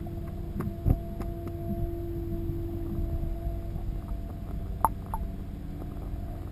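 Underwater sound through a submerged camera: a low rumble with a steady hum, a thump about a second in and two sharp ticks near the end.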